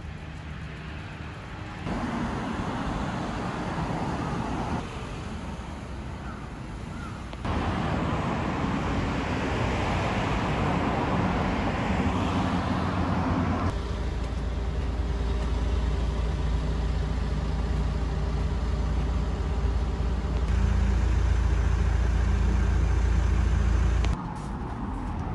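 Outdoor road traffic noise with cars going past, changing abruptly several times; a deep rumble is strongest through the second half.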